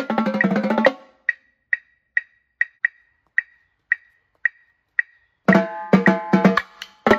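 Marching tenor drums played in a fast run of strokes that stops about a second in. Then come sharp, evenly spaced clicks about twice a second, like a metronome keeping tempo while the drums are silent. Just past halfway the tenor drums start again with a new passage.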